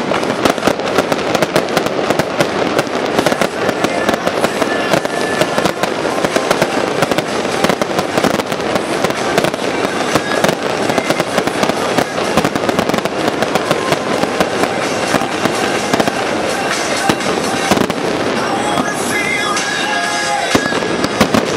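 A fireworks display: a dense, continuous crackling and popping of many small bursts, with music playing underneath.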